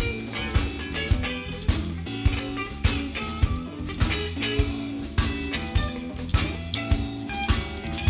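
Live band playing a bluesy instrumental: a semi-hollow-body electric guitar plays a single-note lead over low bass notes, with a drum kit keeping a steady beat of a little under two hits a second.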